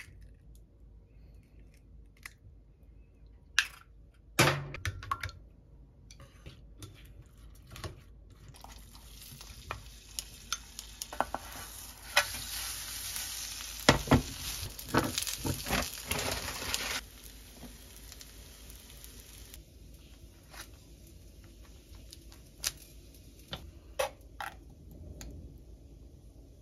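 Egg and shredded cabbage-and-carrot mixture for Korean street toast sizzling in a square frying pan, with a wooden spatula knocking and scraping the pan as it is turned. The sizzle builds about nine seconds in and ends suddenly about seventeen seconds in; a few sharp knocks come before it and scattered clicks after.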